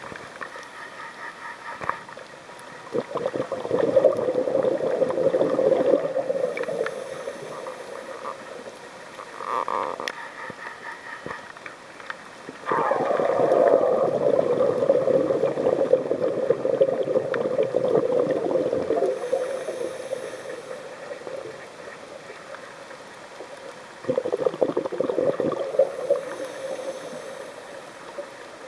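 Scuba diver's regulator exhaust: bubbling, crackling bursts as the diver exhales, heard underwater through the camera housing. Three long exhalations, the longest about six seconds, plus a short one, with quieter pauses for inhaling between.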